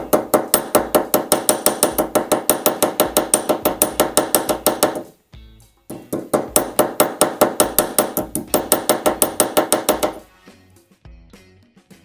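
Small hammer tapping rapidly and evenly on a metal piece clamped in a bench vise, each blow ringing metallically. There are two runs of blows of about five seconds each, with a short pause between them.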